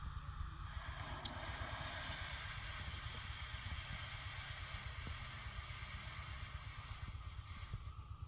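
A long steady hiss that builds about a second in and fades near the end, over a continuous low rumble.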